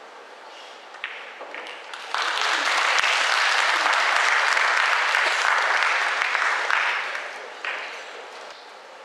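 A pool cue strikes the cue ball with a sharp click, followed by a couple of ball knocks. Then the audience applauds for about five seconds, dying away near the end, as the rack is won.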